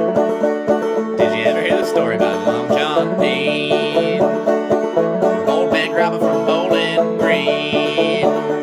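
Clawhammer banjo playing an old-time tune with a steady, rhythmic frailing strum.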